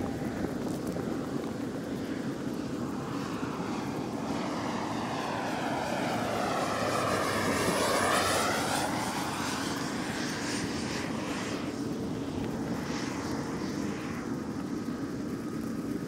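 Aeroplane flying over, its engine noise swelling to the loudest about halfway through and then fading, with the whooshing, phasing sweep of a passing overhead flight.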